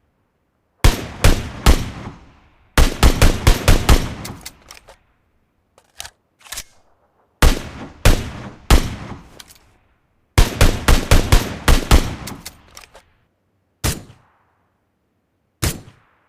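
SKS semi-automatic rifle (7.62×39mm) firing: three shots, a fast string of about ten, two quieter cracks, three more shots, another fast string, then two single shots near the end, each shot trailing off briefly.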